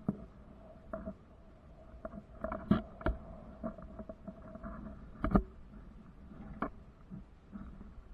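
Irregular knocks and clicks, the loudest a little under three seconds in, just after three seconds, and about five seconds in, over a faint steady tone.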